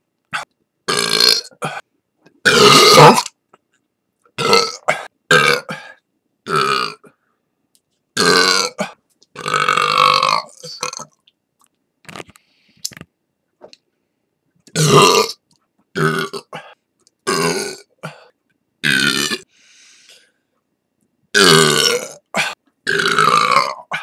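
A person burping loudly over and over: about twenty separate burps, most short and a few drawn out to about a second, with brief silent pauses between them.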